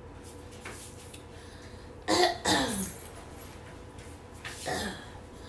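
A woman's short wordless vocal sounds, one pair about two seconds in and a weaker one near the end, each falling in pitch and cough-like.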